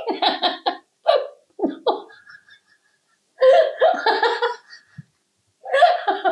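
A woman laughing hard in several bouts of quick voiced pulses, with short pauses between them.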